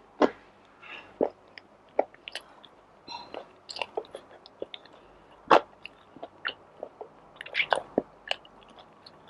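Close-miked eating of fried calamares and tuna pasta: chewing with irregular crunchy bites and mouth clicks, the loudest bite about halfway through.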